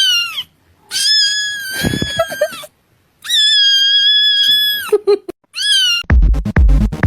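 A cat meowing four times: a short arched meow, two long drawn-out meows, then another short one. Electronic dance music with a heavy bass beat cuts in near the end.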